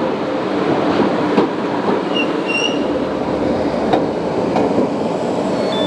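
A Class 484 third-rail electric train, a converted ex-District line D-stock tube train, pulling into the platform and rolling past close by. There is a brief high squeal a little after two seconds in, and a few light clicks from the wheels.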